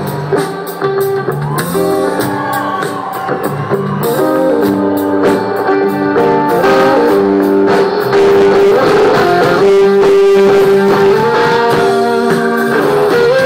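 Live rock band playing an instrumental break: a loud electric guitar lead with held, bending notes over drums.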